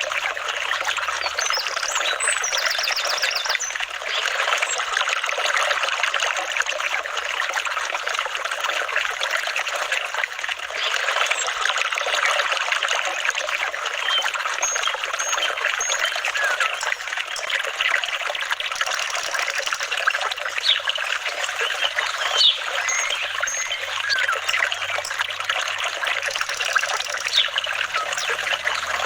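Flowing water trickling and babbling steadily, like a small stream.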